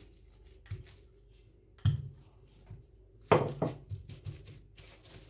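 Plastic sheet rustling and a few soft knocks as hands press and smooth rolled-out semolina dough under plastic and a wooden rolling pin is set down on a stone counter; brief sounds with quiet between them.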